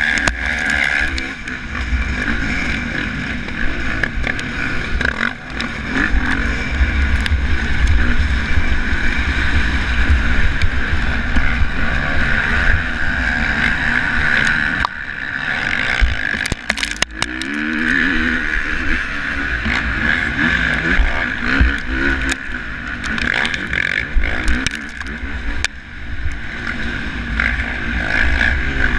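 Motocross bike engine revving up and down under race load, heard from a camera mounted on the bike, with heavy low wind rumble on the microphone and scattered knocks from the rough dirt track.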